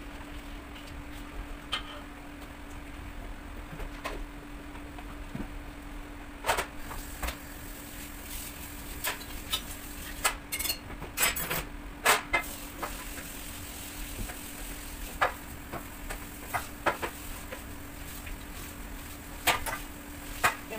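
Kitchen handling at metal baking trays: scattered light clicks and knocks, thickest in the middle, over a steady faint hum.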